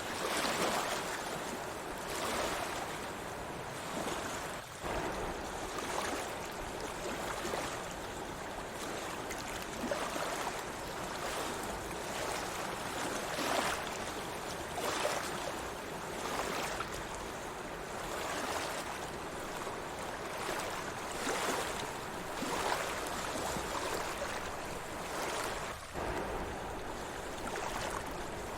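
Sea waves washing in: a continuous rush of water that swells and eases every couple of seconds.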